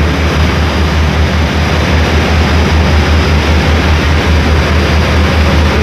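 Passenger ferry's engine running with a steady low drone, mixed with the rushing of water churned up in the propeller wake.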